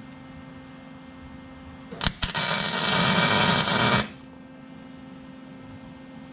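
MIG welder arc welding the steel shock tower: the arc strikes about two seconds in with a couple of sharp pops, crackles steadily for about two seconds, then cuts off. A steady low hum runs underneath.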